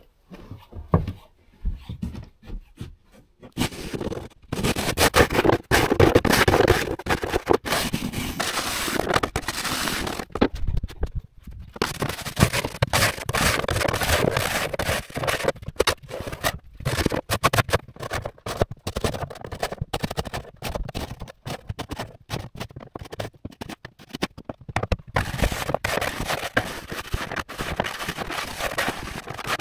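Snow shovel scraping snow off wooden deck boards in repeated pushing strokes with short pauses between them, starting about four seconds in.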